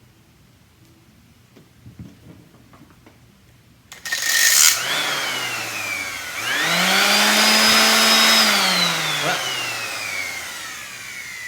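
DeWalt variable-speed orbital sander switched on twice, about four seconds in: a brief burst whose motor whine rises and falls away, then a longer run with the whine held for about a second and a half before winding down. The sander is faulty: its band has broken and the pad won't spin properly.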